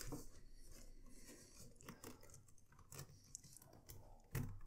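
Faint clicks and rustles of a leather zip-around folio being handled, its metal zip pull tugged, with a soft thump near the end.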